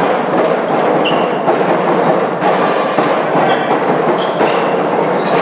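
Sports-hall din during a handball game: crowd noise with the thuds of the ball bouncing on the floor.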